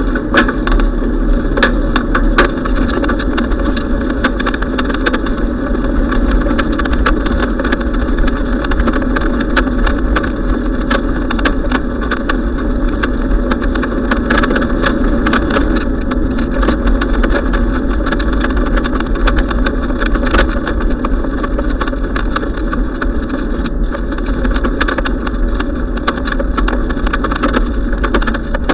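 Steady rushing of wind and tyre rumble on asphalt, picked up by a camera riding on a moving bicycle, with many small clicks and knocks from the camera mount rattling over the road surface.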